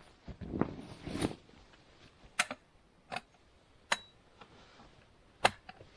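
Bereg 1.9 folding camp cot being assembled: rustling and handling noise, then several sharp separate clicks as its tensioning poles are snapped into the frame.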